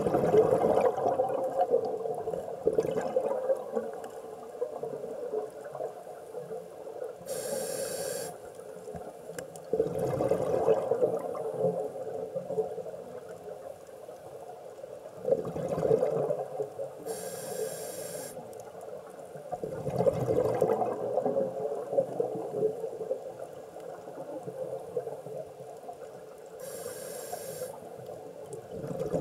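Scuba diver's regulator breathing heard underwater: three short hissing inhales about ten seconds apart, with long rumbling gurgles of exhaled bubbles between them.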